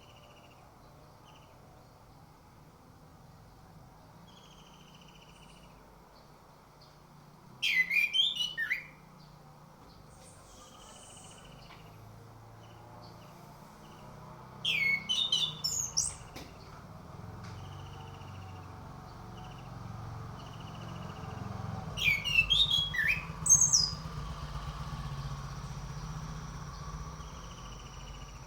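Orange-headed thrush singing: three short, loud bursts of quick, varied whistled phrases, about seven seconds apart. A faint short call repeats every few seconds beneath, and a low rumble grows in the second half.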